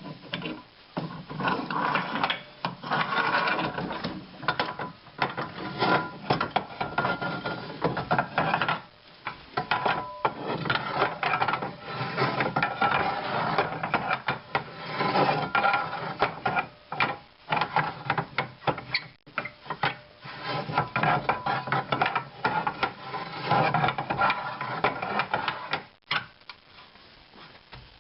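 Hand assembly of metal lathe parts: irregular scraping, rubbing and clicking of metal on metal, with short sharp knocks, as parts are fitted and fastened. It drops away about two seconds before the end.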